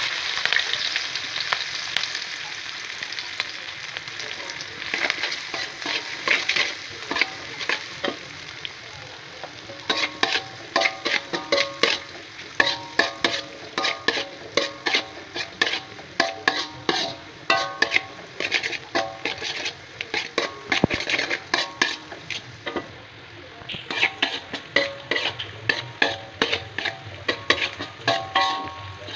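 Chopped chilies, shallots and garlic sizzling in hot oil in a wok, with a spatula scraping and clacking against the metal. The strokes come thick and fast from about a third of the way in, with a short pause late on.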